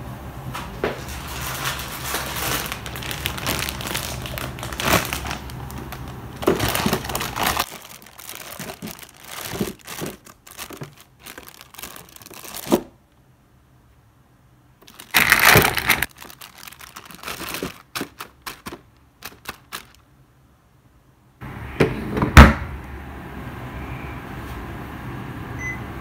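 Plastic bag of cut daikon radish crinkling and rustling as it is handled and laid into a Toshiba refrigerator's vegetable drawer, with scattered clicks and knocks. A loud thunk comes about 22 seconds in as the drawer is shut.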